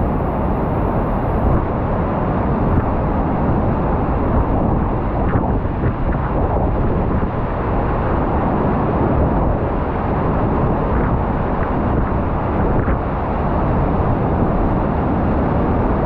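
Loud, steady roar of a large waterfall heard close up, falling water crashing without a break.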